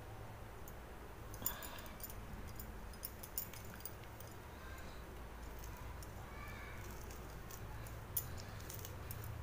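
Faint small ticks and rustles of fingers pulling apart banana flower florets, with a few slightly sharper clicks, over a steady low hum.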